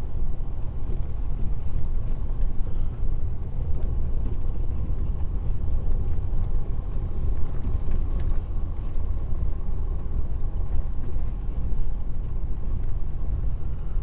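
Steady low rumble of a car driving on a snow-covered road, its engine and tyres heard from inside the cabin.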